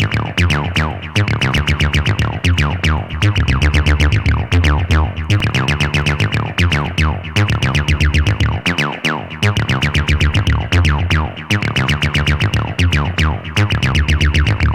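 Distorted TB-303-style acid synth bassline looping in a fast, even run of notes, each with a falling filter sweep, played through a distortion plugin whose pre-distortion highpass filter is being set. Heavy low bass comes in right at the start and stays under the line.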